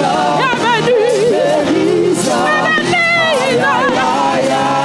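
Gospel worship music: a voice singing with wide vibrato and melodic runs over sustained keyboard chords.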